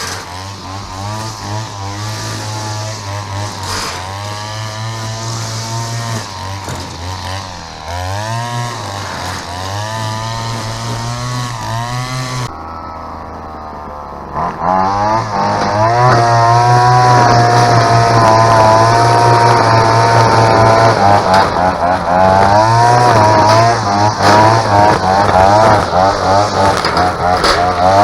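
Small two-stroke engine of a Bushranger (Maruyama-built, about 23 cc) line trimmer running at high revs, its pitch rising and falling as the throttle is worked. The sound drops away briefly about halfway through, then comes back louder.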